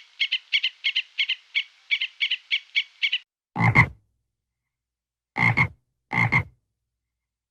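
Frog calls: a fast, even run of short pulses, about six a second, for the first three seconds. Then come three louder, deeper croaks, each a quick double, the first a little after the pulses stop and the other two about a second apart near the end.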